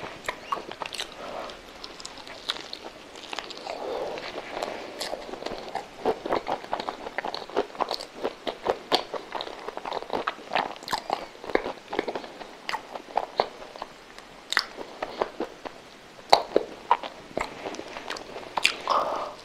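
A person chewing and eating a soft custard-filled milk roll: moist mouth and lip smacks with many quick, irregular clicks.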